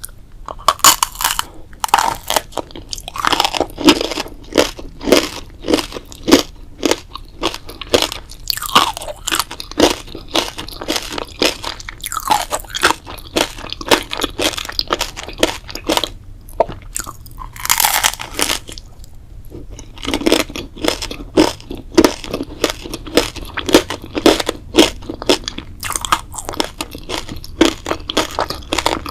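Close-miked chewing and biting of crunchy food, a quick run of sharp crunches with brief pauses between mouthfuls.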